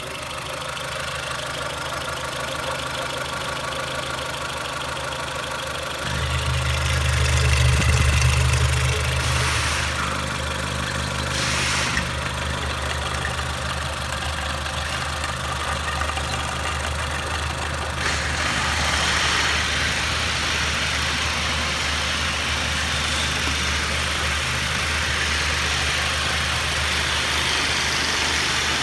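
Renault Megane 1.6i K7M703 eight-valve inline-four petrol engine idling steadily in the engine bay. It grows louder for a few seconds about a fifth of the way in, and a steady rushing hiss joins it about two-thirds of the way through.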